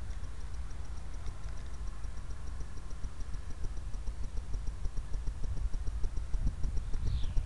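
Wind buffeting a small camera's microphone: a low, gusty rumble that grows stronger toward the end. Over it runs a faint, steady high ticking several times a second, and a brief high falling chirp comes near the end.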